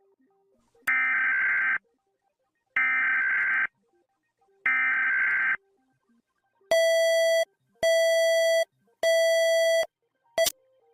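Emergency alert broadcast tones: three roughly one-second bursts of screechy digital data tones, then three harsher buzzing beeps of about the same length, and a short blip near the end.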